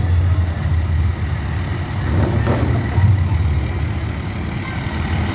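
Diesel engine of a fire department aerial ladder truck rumbling low and steady as the truck rolls slowly past.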